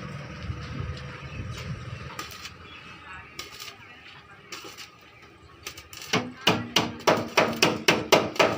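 A hammer striking metal in quick, regular blows, about four a second, each blow ringing briefly; the hammering starts about six seconds in. Before it there is a low rumble and a few scattered knocks.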